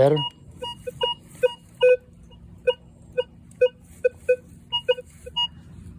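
Minelab Vanquish 440 metal detector giving short target-tone beeps as its coil sweeps over a coin buried on edge, about two to three beeps a second at uneven spacing, mixing a low tone and a higher tone. With the sensitivity turned up two notches the edge-on coin now gives a steadier signal.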